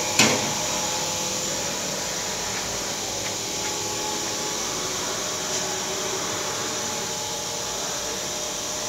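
Powered-up Takamaz X12 CNC lathe standing idle: a steady machine hum with hiss and a few steady tones. A single sharp knock sounds shortly after the start.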